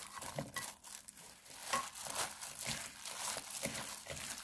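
A hand in a disposable plastic glove tossing sliced cucumber, onion and chives in chili seasoning in a glass bowl: the glove crinkles and the vegetables rustle in irregular strokes.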